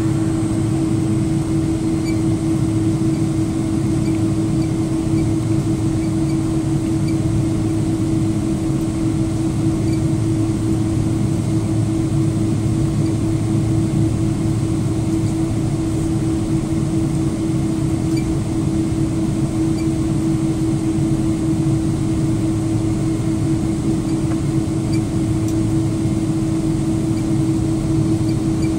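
Boeing 777-200's jet engines at low taxi power, heard inside the passenger cabin: a steady hum with one constant droning tone, mixed with the rush of the cabin air system.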